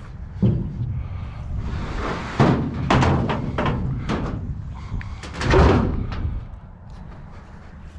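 A heavy, wet metal scrap item being manhandled: a series of knocks and thuds with scraping, the loudest a longer clatter just past the middle.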